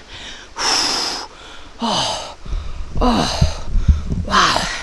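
A young man panting hard, out of breath after running: four heavy breaths with short voiced gasps, a low rumble under the later ones.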